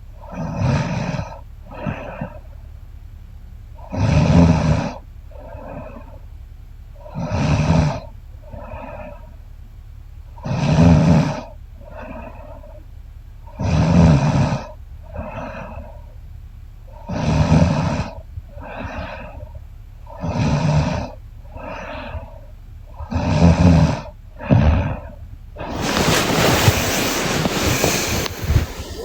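A woman snoring in deep sleep, a loud rasping snore about every three seconds with a softer breath between each. About three seconds before the end the snoring gives way to a loud, even hiss of noise.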